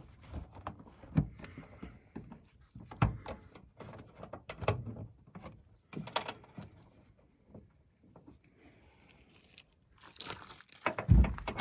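Irregular knocks, clicks and light rattles of hands at work with a small ratchet and plastic wheel well liner fasteners, with a few louder thumps and the loudest, a low thump, about eleven seconds in.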